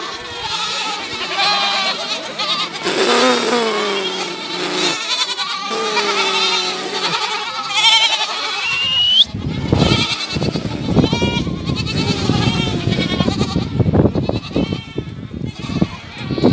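A large herd of goats and young kids bleating, many wavering calls overlapping at once. From about halfway a rough low rumbling noise joins the calls.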